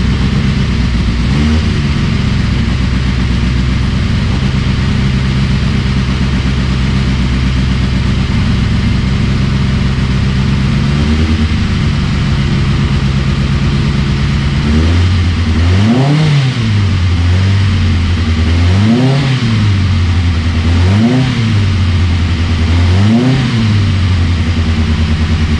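Reliant 750cc four-cylinder engine in a Jeffrey sports racing car running at idle, with a couple of light blips of the throttle. Over the last ten seconds the throttle is blipped four times, the revs rising and falling back each time.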